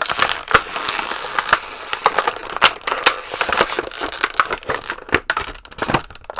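Clear plastic action-figure packaging crinkling and crackling as it is handled, with many sharp snaps.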